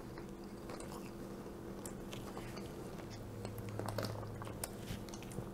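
Faint mouth sounds of a man drinking from a plastic water bottle, with scattered small clicks, over a steady low room hum.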